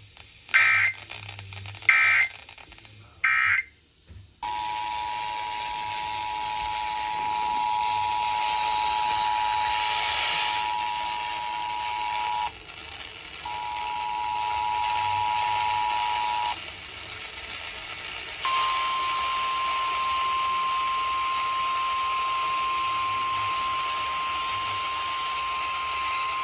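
Emergency Alert System header: three short bursts of screechy data tones, then the two-tone attention signal, broken once by a short gap, then a single steady tone, all over radio hiss. The tones announce an incoming emergency alert, here a flash flood warning.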